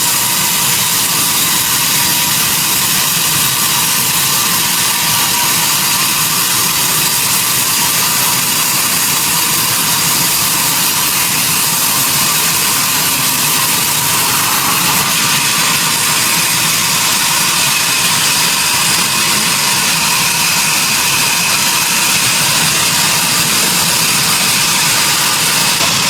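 Sawmill machinery running steadily: a continuous mechanical noise of the mill's engine and saw, with no pauses or breaks.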